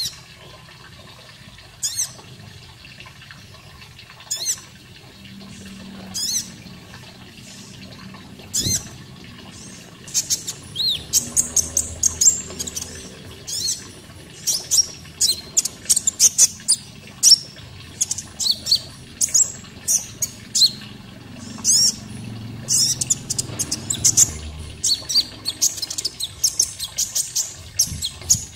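Konin bird calling with short, high chirps and quick sweeping notes: a few scattered calls at first, then a rapid, busy run of chirps from about ten seconds in. Under it runs a faint, steady sound of water.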